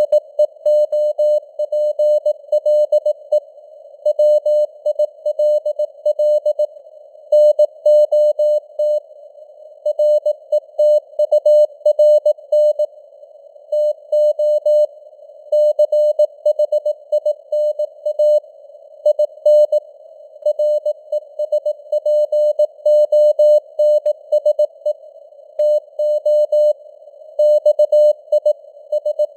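Morse code sent at 18 words per minute: a single mid-pitched tone keyed on and off in dots and dashes, inside a narrow band of simulated radio hiss, the signal fading and swelling (QSB).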